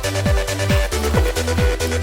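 Electronic dance music with a steady kick drum at about two beats a second over a pulsing bass line and hi-hats.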